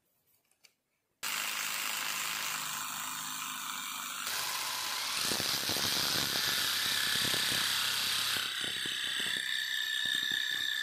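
Small electric reciprocating saw starting suddenly about a second in and running steadily, its blade cutting into a wooden handle block. The cutting grows louder after a few seconds, with a fast, even stroke rhythm, and a high whine joins in near the end.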